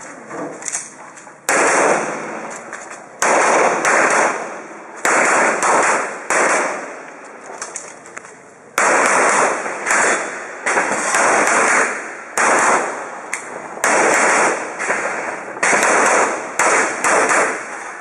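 Pistol shots fired in quick strings during an IPSC practical-shooting stage, about fifteen or more sharp bangs each trailed by a short echo. A pause of about two seconds falls midway while the shooter moves to the next position.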